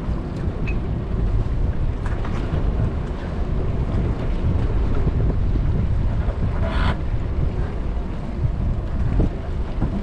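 Wind buffeting the microphone on a small open boat, a steady low rumble, with small scattered knocks of fishing gear being handled and one short, louder rattle about seven seconds in.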